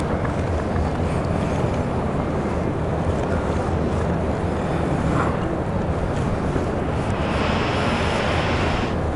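Wind buffeting the microphone of a handheld camera: a steady low rumble with no pauses, with a higher hiss joining for the last couple of seconds.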